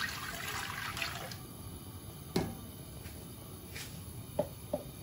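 Milk poured from a jug into an aluminium pot, a splashing pour that tails off about a second in. Then a sharp knock, and two lighter knocks near the end.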